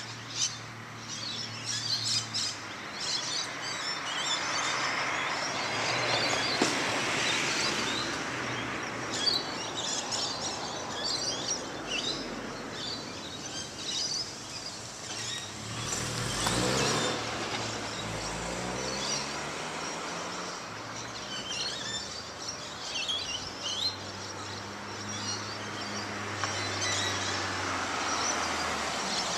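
Birds chirping over a steady hiss of road traffic. About halfway through, a car drives past close by, its tyre and engine noise swelling and then falling in pitch as it goes away.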